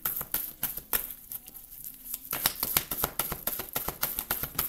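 A deck of oracle cards being shuffled by hand: a quick, uneven run of soft card clicks and slaps.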